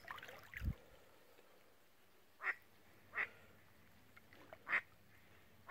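A duck quacking: about five short, single quacks spaced a second or so apart, with a low thump near the start.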